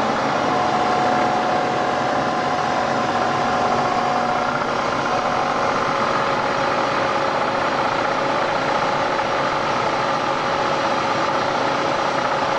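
Series 2 Bridgeport CNC milling machine running: a steady mechanical whine made of several held tones over a noisy hum. One tone fades out about four and a half seconds in while a higher one grows stronger.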